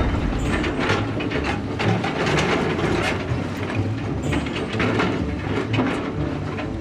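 Plastic toy construction vehicles being pushed and worked by hand: a busy run of clicking and rattling, like gears and ratchets, over a low hum.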